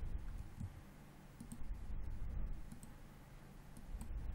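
A few faint computer mouse clicks over a low, steady background hum.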